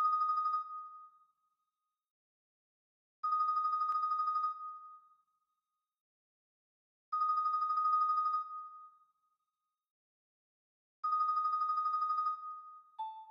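Sampled marimba from MuseScore 2 notation playback, playing slow, quiet tremolo chords high on the instrument: each chord is rolled rapidly for just over a second and then rings away, followed by a pause, four times about every four seconds. Lower single notes begin right at the end.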